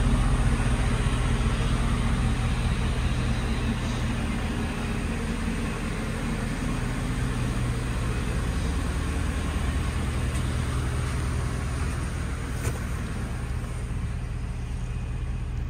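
2007 Chevy Silverado 1500's 5.3-litre V8 running steadily at idle, with a single light click about three-quarters of the way through.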